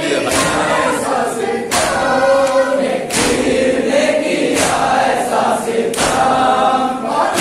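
A crowd of men chanting a noha (Muharram lament) in unison, with rhythmic matam chest-beating: a sharp slap about every second and a half, five times.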